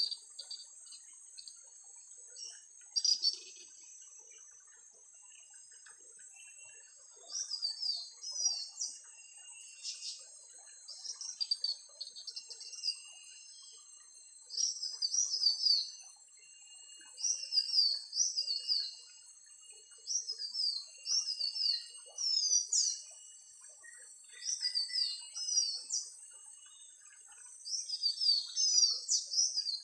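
Recorded great iora (sirtu hutan) song played as a lure through a Bluetooth speaker: short phrases of quick, sharply gliding whistled notes repeating every couple of seconds, coming and going as the Bluetooth signal drops out over the distance. A steady high buzz runs underneath.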